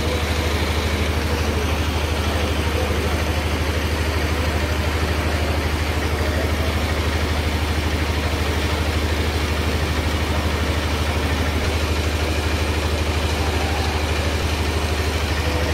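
An engine running steadily at an even speed, a deep drone with a fast regular beat that does not change.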